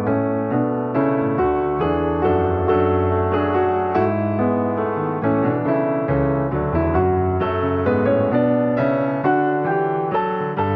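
Background piano music: a gentle run of struck notes, each ringing and fading.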